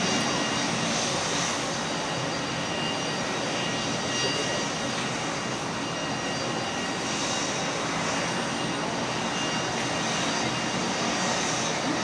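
Boeing 737-200's Pratt & Whitney JT8D jet engines running steadily: an even rush of noise with faint high whining tones.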